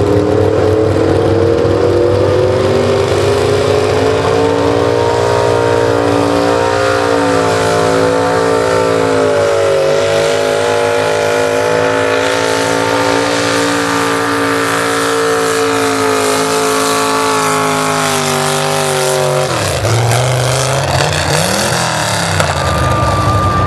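Pro stock mini truck's engine at full throttle under load while pulling a sled. Its pitch climbs over the first several seconds and holds high, then drops sharply near the end as the driver comes off the throttle, leaving a lower engine sound.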